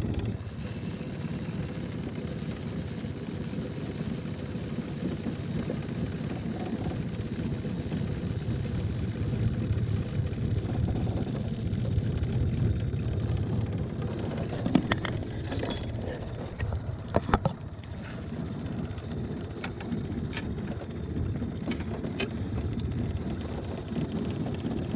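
Small Mercury tiller outboard motor running steadily at trolling speed, a low even drone. A few sharp clicks and knocks come through over it in the second half.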